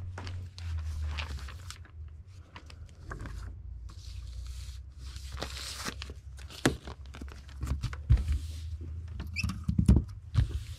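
Plastic and paper rustling and crinkling as a comic book is handled and slipped into its bag and board, broken by scattered light clicks and knocks, the sharpest a cluster about ten seconds in. A steady low hum runs underneath.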